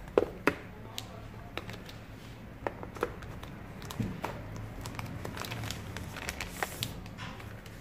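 Crinkling of a tablet's plastic protective film and clicks of the cardboard box and tray as the tablet is handled and lifted out, with the sharpest clicks about half a second in.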